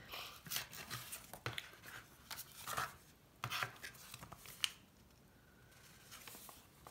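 Paper rustling and light taps as cards, a paper ticket and a glassine envelope are picked up, shuffled and set down on a table: a run of short crinkles and clicks, the sharpest near the middle, thinning out after about five seconds.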